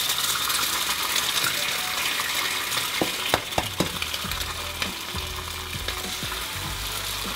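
Eggs frying in a hot non-stick pan, with a steady sizzle. A few sharp clicks come about three seconds in as a second egg is cracked, and the sizzle thickens as it drops into the pan.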